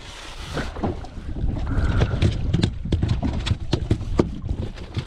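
Wind rumbling on the microphone, with a string of short sharp knocks and clatter as kept speckled trout are handled and brought out to be shown.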